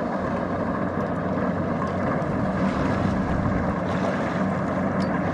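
Kubota DC-70 Plus rice combine harvester running steadily at working speed, a constant diesel engine hum with machinery noise.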